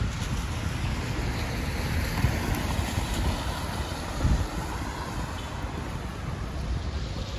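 Wind buffeting the microphone in low gusts over a steady hiss of rain and traffic on wet downtown streets.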